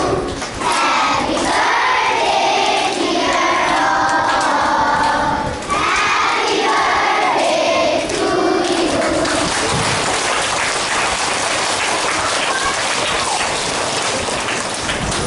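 A large group of children's voices singing or chanting together in phrases, with short breaks between lines. After about nine seconds this gives way to a dense hubbub of chatter and shuffling feet as the crowd of children moves.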